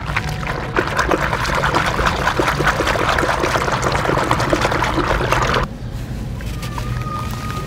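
Hands squeezing and crumbling fine sand in a basin of foamy water: a dense wet crackle of popping bubbles and gritty squelching. It stops abruptly about five and a half seconds in, leaving a low steady hum.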